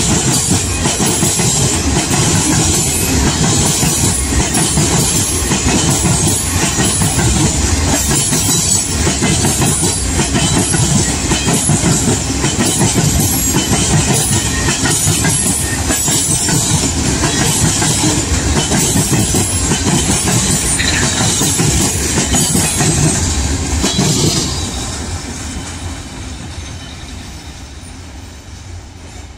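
A train rolling past with a steady clatter of wheels over the rails. The noise holds loud for most of the stretch, then falls away over the last five seconds as the train moves off.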